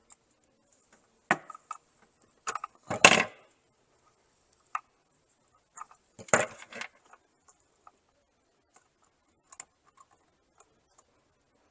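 Small clicks and handling noises from a wire stripper stripping insulation off electrical wires. The two loudest are short scraping pulls, about three seconds in and again about six and a half seconds in.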